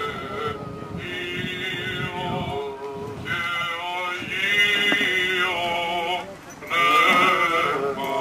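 Greek Orthodox Byzantine chant: a voice singing a slow, wavering melismatic line over a steady held drone note, played through a loudspeaker. It breaks off briefly about six seconds in, then comes back louder.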